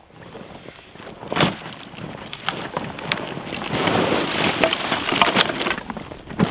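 Dry, dead tree roots and branches dropped onto a woodpile, clattering and cracking against the wood already there. A sharp knock comes about a second in, then a dense crackle of snapping twigs in the middle, and another knock near the end.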